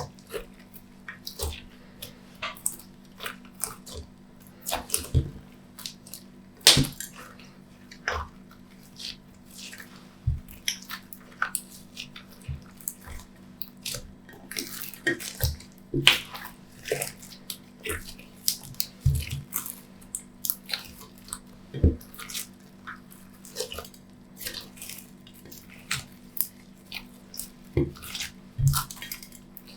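Glossy slime being squeezed and mixed by hand, making irregular wet clicks, pops and squelches, a couple each second, over a faint steady low hum.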